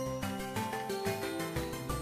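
Instrumental background music: a light tune of clear notes, about four to a second.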